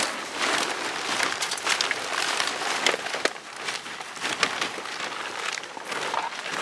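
Plastic rubbish bags and litter rustling and crumpling as rubbish is stuffed into a woven sack and heaved into a cage trailer, with a few sharp knocks.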